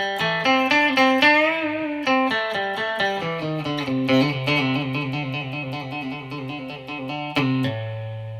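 G&L ASAT Classic Tribute electric guitar played on its bridge pickup through an amp: a quick single-note lick with a bent, wavering note about a second and a half in, then a run of fast alternating lower notes, ending on a low note left ringing near the end.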